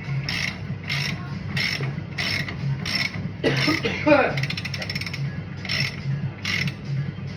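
Hand socket ratchet being worked back and forth on a bolt, a rasping burst of clicks on each stroke in an even rhythm of roughly two strokes every second and a bit; about two-thirds of the way through it spins freely in a quick run of clicks.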